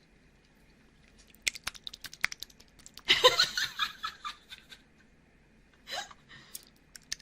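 Grape jelly squished and eaten close to an ASMR microphone: scattered wet clicks, then a loud squelching burst about three seconds in and a shorter one near six seconds.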